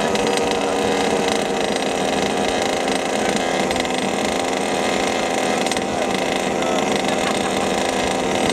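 Two 26cc two-stroke petrol engines of large-scale HPI Baja 5SC and 5B RC cars idling steadily, a buzzy chainsaw-like note with no revving.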